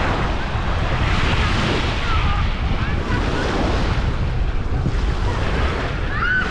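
Wind buffeting an action camera's microphone as a steady, gusty low rumble, over the wash of surf on a sandy shore.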